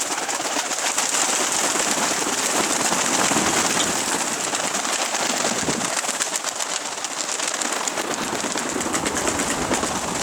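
Strong gusting wind rushing over the microphone: a steady, dense hiss with rapid flutter.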